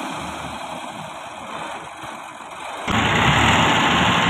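Massey Ferguson tractor's diesel engine running, at first fainter and more distant, then suddenly louder and closer about three seconds in.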